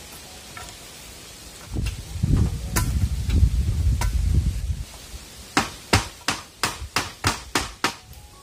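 A low rumbling noise for about three seconds, then a run of about nine sharp, even chops, roughly three a second, like a knife or cleaver chopping beef on a wooden board.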